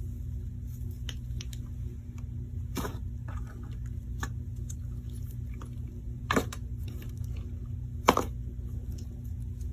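Slime being squished and poked by hand, giving scattered small clicks and a few sharper pops, the loudest about eight seconds in, over a steady low hum.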